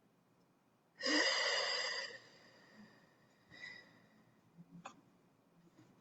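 A person's deep breath out, one loud exhale lasting about a second, followed by a fainter breath and a small click near the end.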